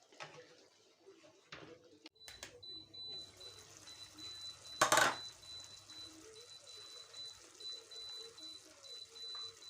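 Whole fish simmering on low heat in thinned tomato sauce in a pan, a soft bubbling hiss, with one short clatter of a utensil or pan about five seconds in.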